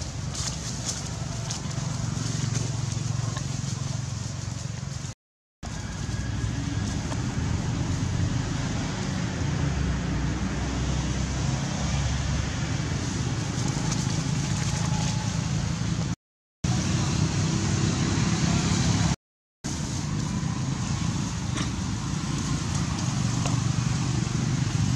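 Steady low rumbling background noise, cut by three brief silent dropouts.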